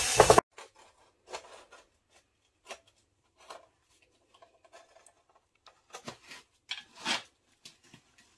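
Power drill running through a wooden mould lid, stopping within the first half second. After that come faint, scattered scrapes and taps as a hand grips and works the wooden lid on the concrete casting, with a louder cluster of scrapes about six to seven seconds in.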